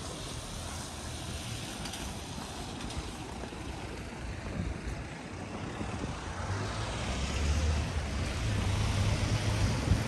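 Outdoor street ambience with wind buffeting the microphone in low, irregular rumbles. A broader rumble and hiss swells louder through the second half.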